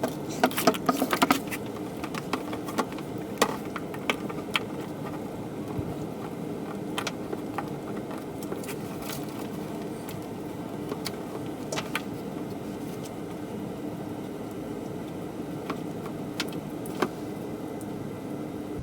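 Scattered light clicks and knocks from a new sewage-pump float switch and its cord being handled and fitted, several in quick succession about half a second in and single ones later, over a steady low hum.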